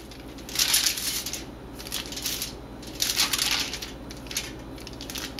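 Aluminum foil crinkling in a few short rustling bursts as hands press and shape a soft slab of chocolate spread on it.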